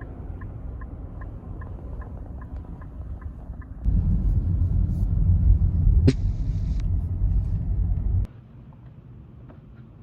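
Low road rumble of a moving car heard from inside, with a light regular ticking about two or three times a second over the first few seconds. A cut brings a louder rumble, with one sharp click and a short hiss about six seconds in.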